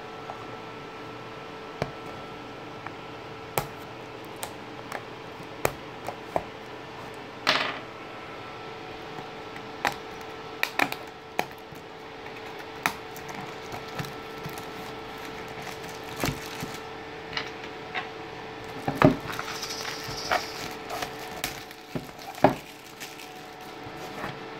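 Scattered clicks, taps and short scrapes of a small cardboard box being handled, louder knocks in a cluster near the end, over a steady background hum.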